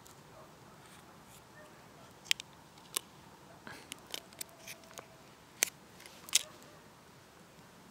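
Foil lid being peeled off a small plastic portion cup of honey and the thin cup being handled: scattered sharp crinkles and clicks of foil and plastic, four of them louder snaps.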